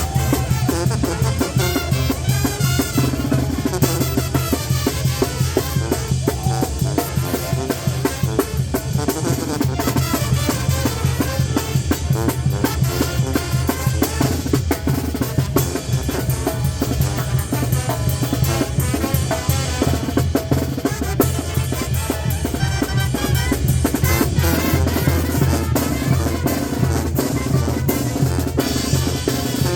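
A banda playing loud, continuous dance music, with snare and bass drum keeping the beat over a heavy bass line.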